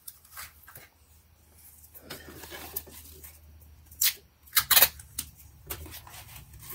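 Cardboard crackling as it is folded down, then blue duct tape pulled off the roll with several loud rips about four to five seconds in.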